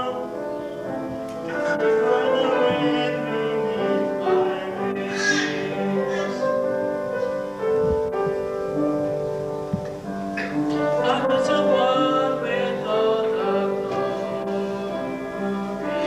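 Music: a slow piece of long held notes that change from one to the next.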